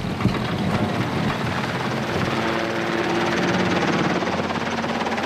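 Light mustering helicopter flying low, its rotor beating and engine running steadily. From about two seconds in, a steady hum of several pitches holds over the rotor noise.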